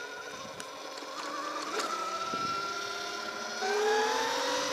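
Throne SRPNT electric moto's motor whining as it pulls away, the pitch climbing slowly. A stronger, lower whine joins about three and a half seconds in as it speeds up.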